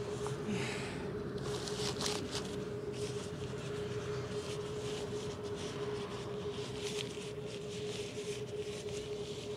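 Irregular rustling and light clicks of camping gear being handled and packed, over a steady unchanging hum.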